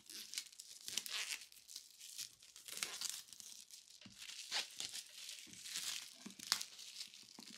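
Plastic shrink wrap being torn and peeled off a boxed figure, with irregular crinkling and crackling throughout.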